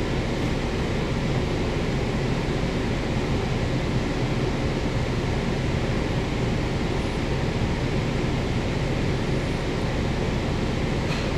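Steady road traffic noise: several cars' engines and tyres passing, with a low engine hum underneath and no single vehicle standing out.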